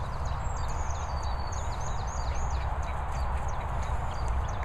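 Steady low rumble of wind on the microphone, with short, thin, high bird chirps over it during the first half.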